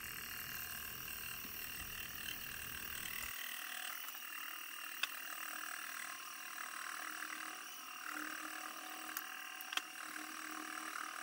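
A milling machine's spindle turning an oiled slitting saw blade through the end of a model-engine connecting rod, cutting off its journal cap: a steady cutting sound with a couple of sharp ticks.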